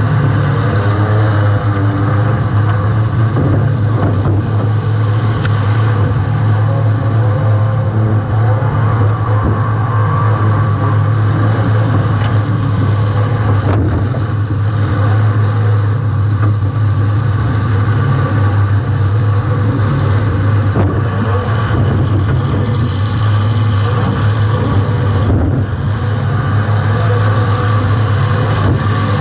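Welded compact demolition derby car's engine running loud and steady, picked up close by a camera mounted on the car, with a little wavering in pitch in the first few seconds.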